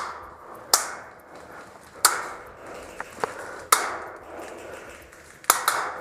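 Airsoft guns firing single shots: about six sharp cracks at irregular intervals, each followed by a short echo.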